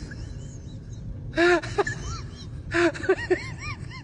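A dog vocalizing in two bursts of short whines and yelps, each call rising and falling in pitch: one burst about a second and a half in, a longer run of calls about three seconds in.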